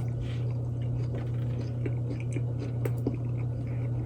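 A person chewing a mouthful of grilled chicken wrap with ranch, close to the microphone: soft wet mouth sounds with small scattered crunches and clicks, over a steady low hum.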